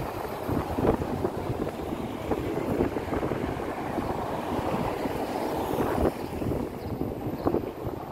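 City traffic: cars driving through a street intersection close by, a steady tyre and engine noise, with wind rumbling on the microphone.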